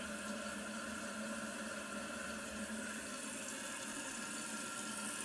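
Kohler toilet tank refilling through its fill valve: a steady, even rush of running water.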